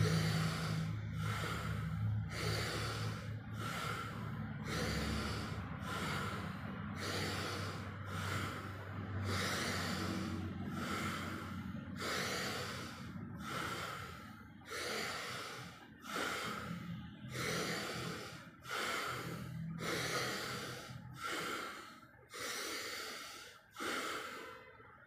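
A person doing pranayama, breathing forcefully in and out in a steady rhythm a little faster than one breath a second, in time with the arms pumping up and down as in bhastrika (bellows breath). In the second half each breath starts more sharply, with short gaps between them, and the breathing stops near the end.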